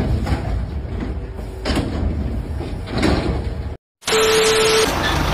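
Heavy machinery rumble with knocks, swelling twice, from a truck-mounted loader crane handling a heavy load. It cuts off just before four seconds in and gives way to a short burst of TV-static hiss with a steady beep.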